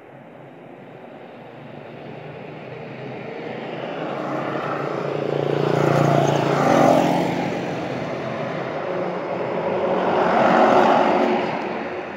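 Motor vehicle engines passing by, the sound swelling up to a loud peak about six seconds in, easing off, then swelling to a second peak near the end before fading.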